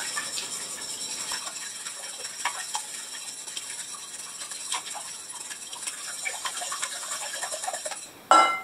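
Wire whisk beating eggs in a mixing bowl: quick, light, irregular clicking of the wires against the bowl, with one louder clink near the end.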